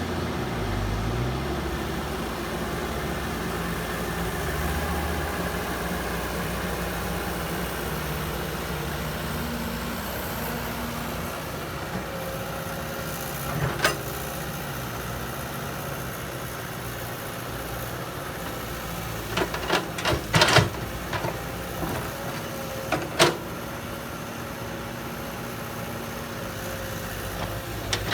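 Heavy construction machine's diesel engine running steadily, its pitch shifting now and then. There is one sharp knock about halfway through, then a quick cluster of sharp knocks and one more in the last third.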